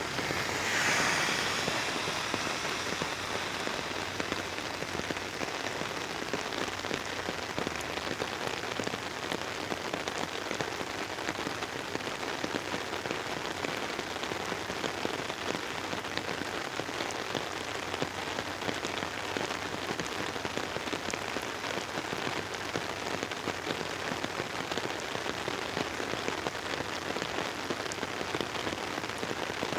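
Rain falling on an umbrella canopy overhead: a dense, steady patter of many drops, with a brief louder surge about a second in.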